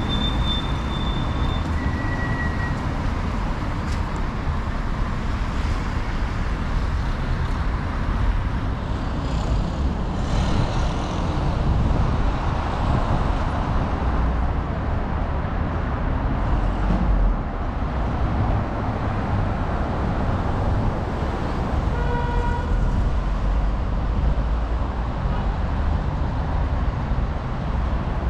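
Steady city street traffic, cars and other vehicles passing, with a short horn toot about three-quarters of the way through.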